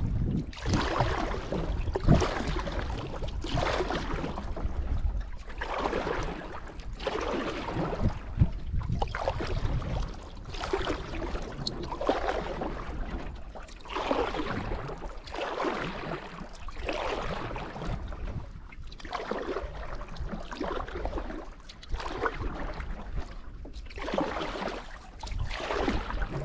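Canoe paddle strokes in lake water: a rhythmic swish about every second and a half as the blade pulls through. A low wind rumble on the microphone runs underneath.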